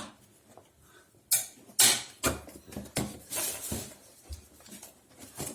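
Plastic vacuum-cleaner parts and packaging being handled: a handful of separate knocks, clicks and rustles, the busiest stretch past the middle.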